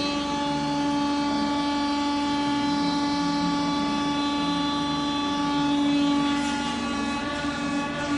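A large wood lathe and its drive motor running with a steady, unchanging hum.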